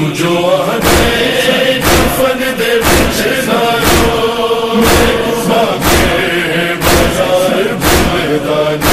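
Crowd of male mourners chanting a Muharram noha in unison, with a heavy beat about once a second from matam, hands striking chests in time with the chant.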